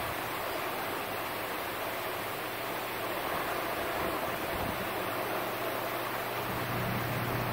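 High-pressure mist fans running: a steady rushing of moving air with a faint low hum underneath.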